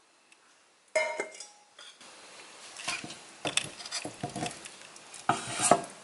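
A metal pot lid clatters about a second in. Then a wooden spoon stirs chunks of raw beef and bones in a stainless steel pot, with irregular knocks and scrapes against the metal.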